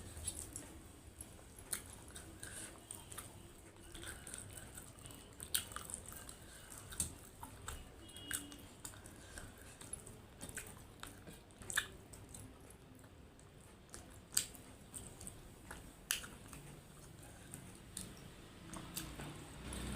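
A person chewing and biting a meal of chicken curry and rice close to the microphone: irregular wet mouth clicks and smacks, a few of them louder than the rest.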